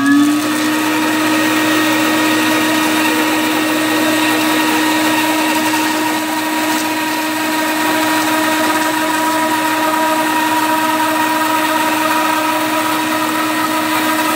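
Bandsaw running and ripping a thin veneer slice off a block of oak held in a Little Ripper log sled: a steady motor hum with the hiss of the blade cutting through the wood. Its tone rises slightly at the start and then holds steady.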